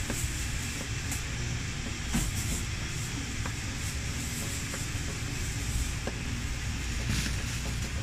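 Steady low rumble with an even hiss, broken by a few faint clicks and a slight bump about two seconds in.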